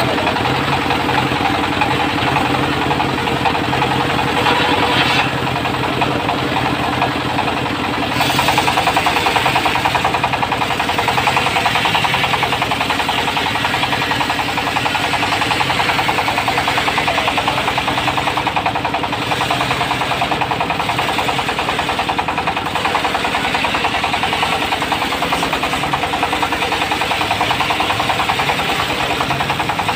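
Diesel engine driving a mobile circular sawmill, running steadily with a rapid, even knocking beat. It gets a little louder and brighter about eight seconds in.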